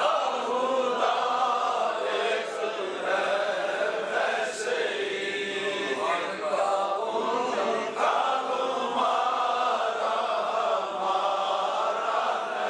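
Male voices chanting a religious recitation in a sustained, melodic line.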